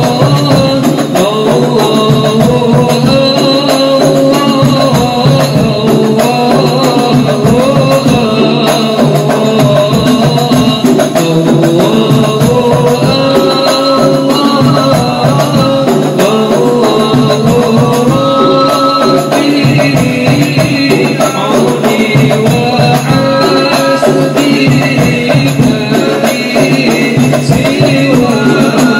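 A male voice sings an Arabic devotional qasida in a melismatic line, backed by hadrah frame drums (rebana) beating a steady rhythm.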